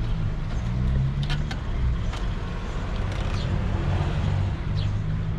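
A motor vehicle running: a steady low rumble with a few faint clicks.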